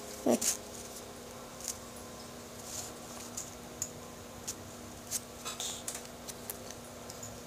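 Handling of a miniature and paintbrush over a plastic tray: a soft knock just after the start, then scattered small clicks and taps. A faint steady hum runs underneath.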